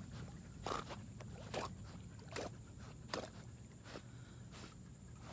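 Faint splashes and slaps of canal water as dogs swim, coming as a few short, soft hits roughly a second apart over a low steady rumble.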